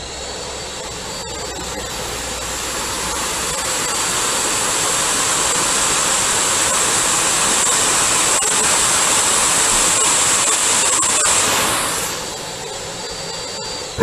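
Vacuum cleaner running: a steady rush of air with a high motor whine, growing louder as the nozzle comes near and dropping off about twelve seconds in.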